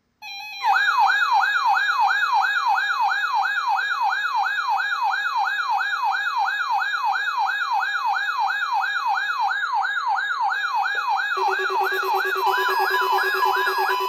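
Several weather alert radios sounding their alarms at once, led by a loud whooping siren tone that sweeps upward and repeats about two and a half times a second. Near the end, further radios join with a steady tone and beeping tones. The alarms are set off by a Required Weekly Test that was accidentally sent with the alert tone.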